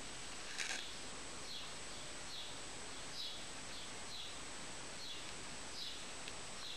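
Short high chirps repeating about every 0.8 seconds over a steady hiss, with one sharp click just under a second in.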